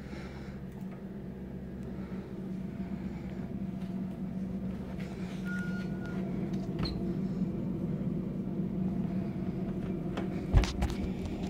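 Steady low machine hum, growing louder over the first few seconds as a door opens into the room, with a single sharp knock near the end.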